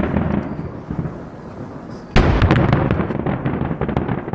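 Fireworks finale barrage: aerial shells bursting in rapid succession, with a much louder burst about two seconds in followed by dense crackling that fades away.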